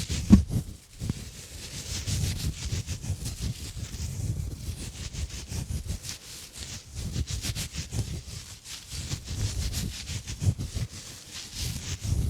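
Exfoliation gloves rubbing, swirling and scratching close around a microphone: a dense scratchy hiss with low muffled bumps, and one louder bump about half a second in.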